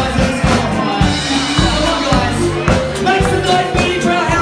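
Loud music with a steady beat, about two beats a second, with voices over it.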